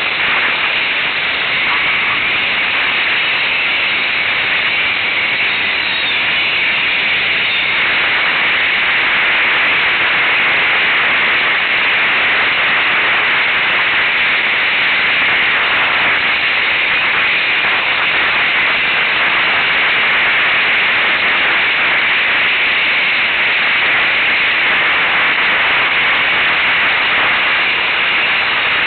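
Steady loud hiss of an ATV ride picked up by the rider's camera: engine and wind noise merged into a static-like rush, with no clear engine note standing out.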